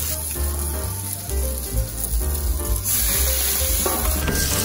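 Gyoza sizzling in oil on a flat steel teppan griddle, a steady frying hiss that gets sharply louder about four seconds in.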